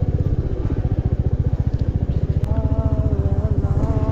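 Motorcycle engine running at low revs with a fast, even pulse as the bike rides along a dirt track.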